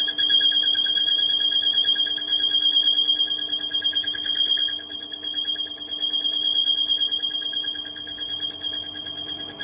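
Small metal lathe cutting a spinning metal motorcycle part: the tool against the turning workpiece gives a steady high-pitched ringing squeal with a fine rapid flutter, a little softer from about five seconds in.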